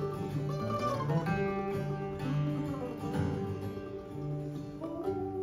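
Bluegrass band playing acoustically: mandolin picking quick notes over strummed flat-top acoustic guitar. A long held note comes in near the end.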